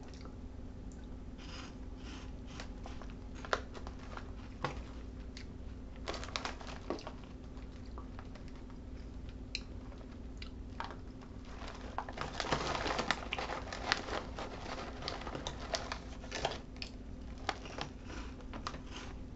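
Crunchy Kuai Kuai corn snacks being chewed in scattered crisp crunches. A plastic snack bag crinkles in a dense stretch a little past the middle.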